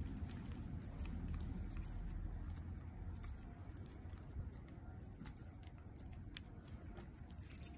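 An orange tabby cat licking paste from a squeeze-tube treat: quick, small, wet clicks and smacks of its tongue and mouth, over a low rumble.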